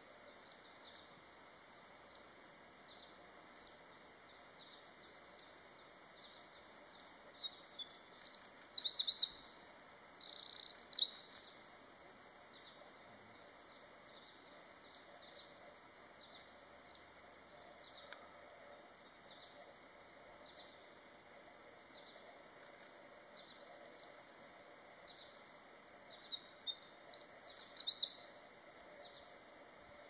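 Eurasian wren singing: two loud, fast songs of rapid high trills and sharp notes, the first about five seconds long starting some seven seconds in, the second about three seconds long near the end. Faint high chirping runs in between.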